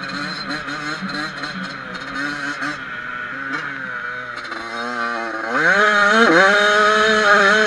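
Yamaha YZ85 two-stroke dirt bike engine heard from the rider's helmet, running at part throttle with a bobbing note and scattered clicks over the first few seconds. About five and a half seconds in it revs hard and gets much louder, dips briefly, then holds high.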